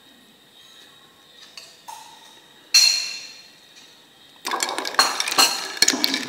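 Metal spoon clinking against a drinking glass and stirring ice cubes in it: one sharp clink about three seconds in, then quick, continuous clinking and rattling of spoon and ice against the glass from about halfway on.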